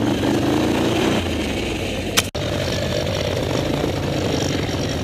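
ATV engines running, with the pitch wavering in the first second. About two seconds in there is a sharp click and a very brief dropout at a cut, after which an ATV engine runs steadily.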